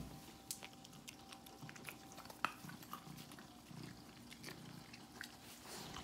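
Cats crunching dry treats: faint, irregular crunching clicks, with one sharper click about two and a half seconds in.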